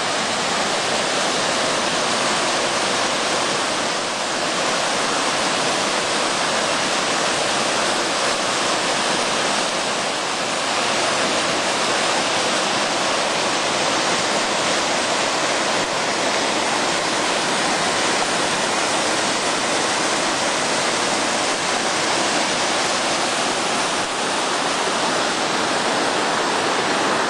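River water rushing and churning over rocks in small rapids and cascades, a steady, loud, even rush.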